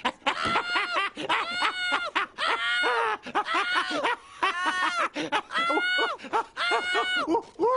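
A man's cartoon voice laughing hysterically: rapid, high 'ha-ha' bursts several a second, in bouts broken by short breaths, mocking laughter at having scared the listener.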